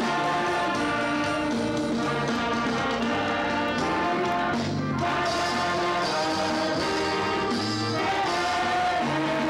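A church band of alto saxophones and trumpets, backed by keyboard and drums, playing a gospel hymn in sustained, held notes, with a short break between phrases about five seconds in.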